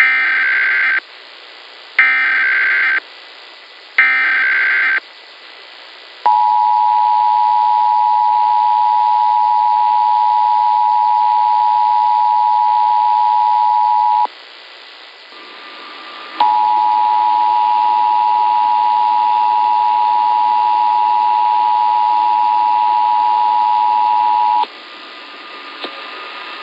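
Emergency Alert System test signal: three one-second bursts of the digital SAME header, then the steady two-tone EAS attention signal for about eight seconds. After a two-second gap a second attention tone sounds for about eight seconds more.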